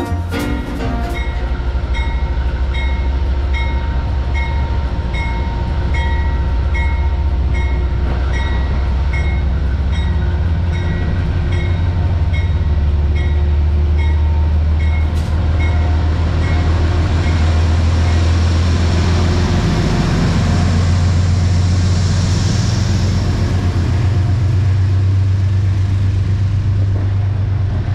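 Amtrak GE Genesis P42DC diesel locomotive pulling into a station with a steady low engine rumble, then its stainless passenger cars rolling past. A ringing repeats about twice a second through the first half, and a hiss of wheel noise swells as the cars go by.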